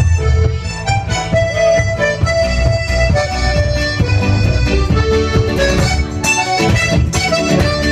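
Live acoustic folk music: a button accordion plays a slow melody in long held notes over strummed acoustic guitar accompaniment.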